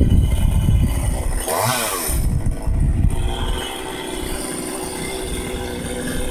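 Chainsaw running steadily, revved up and back down once for a moment about a second and a half in.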